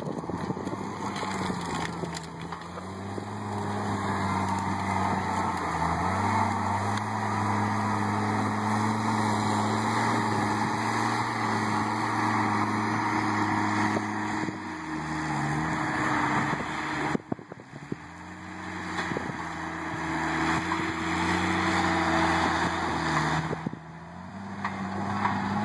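Diesel engine of a John Deere compact track loader running under load while working a tree puller grapple, its pitch rising, holding and dipping as the operator works the machine. The sound breaks off briefly twice.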